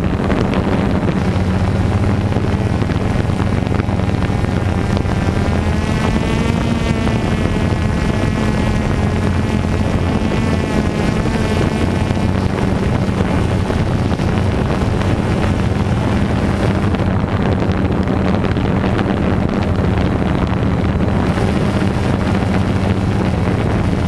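DJI Phantom 2 quadcopter's electric motors and propellers droning steadily, picked up by the GoPro mounted on the drone, with wind noise on the microphone. The hum wavers in pitch for several seconds midway as the motor speeds change.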